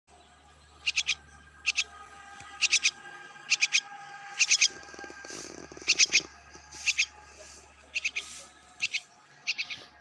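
Fledgling myna calling: short bursts of two to four quick, high chirps repeated about once a second. A short low scuffling noise comes about halfway through.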